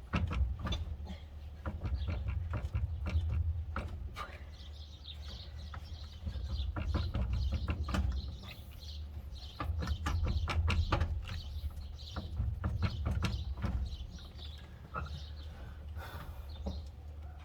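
A man grunting and straining in repeated efforts to break loose a tight steering-wheel nut, with scattered clicks and knocks from the wrench and steering column. The nut does not budge.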